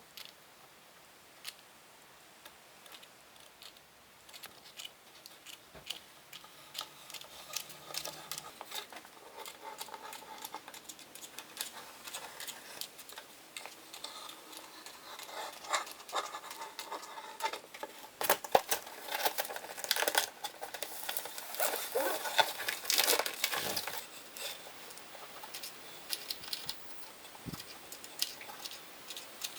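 Small clicks, taps and scratchy rustling of things being handled and worked at a bench. It grows busier and louder toward the middle and eases off near the end.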